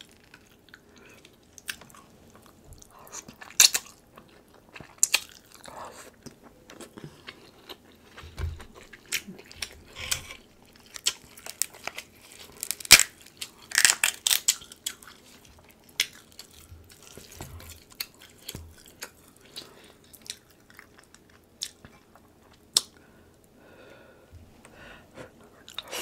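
Close-miked eating sounds: king crab leg shells cracking and snapping as they are broken apart by hand, with chewing and biting. Sharp cracks come at irregular intervals, the loudest a cluster around the middle.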